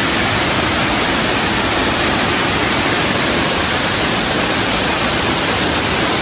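A large waterfall: falling water making a steady, loud rush with no breaks.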